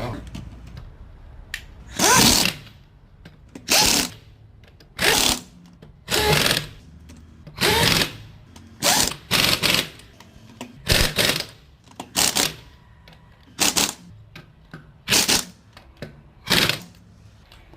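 A power tool run in about a dozen short bursts, each under a second long, roughly every second and a half.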